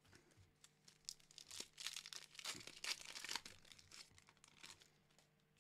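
Foil wrapper of a Pokémon Battle Styles booster pack being torn open and crinkled. It is a faint run of crackling rips, thickest in the middle.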